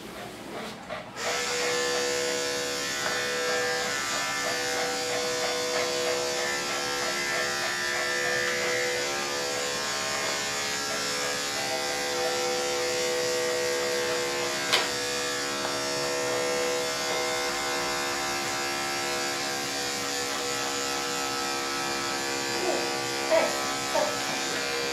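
Electric dog-grooming clippers switch on about a second in and run with a steady buzzing hum while the dog's fur is clipped, with one sharp click midway.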